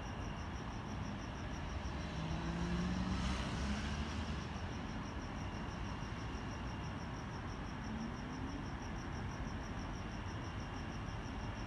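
Crickets chirping steadily in an even, high pulsing trill, with a vehicle passing about two seconds in, its noise swelling and fading away within a couple of seconds.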